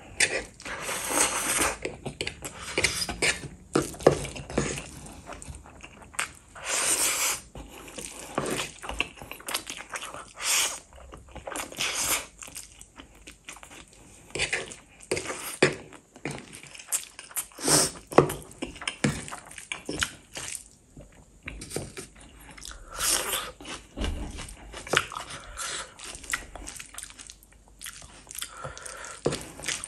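A person eating spicy Korean instant fire noodles, close up. Short wet chewing and smacking clicks alternate with louder slurps of noodles lasting about a second each, several times over.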